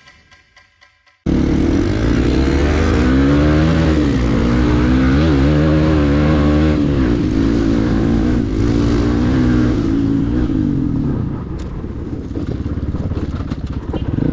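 Hero Xpulse single-cylinder dirt bike engine running on a dirt trail, its pitch rising and falling as the throttle is opened and eased, over wind and tyre noise. It comes in abruptly about a second in, after the faint tail of a logo sting.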